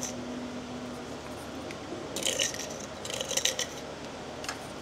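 A plastic spoon scooping coarse pink salt in a glass jar and sprinkling it over the taro: two short gritty, scratchy bursts about two and three seconds in.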